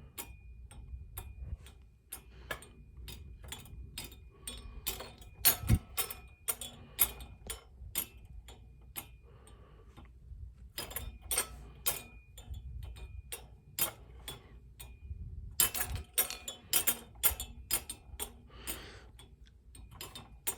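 Baby Einstein Rocking Dolphins kinetic motion toy rocking and clicking: quick, uneven, cymbal-like clicks and clinks in bunches. They thin out around the middle and pick up again, louder, in the last few seconds.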